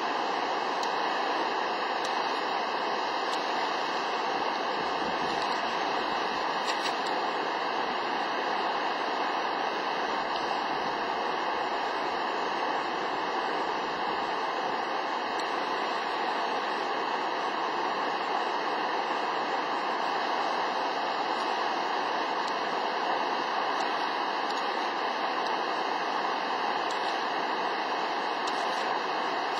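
Shōmyō Falls, Japan's tallest waterfall, giving a steady, even rush of falling water.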